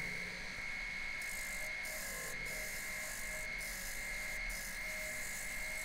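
Wood lathe running while a gouge cuts the face of a large spinning wooden disc, with a steady high whine over the cutting noise.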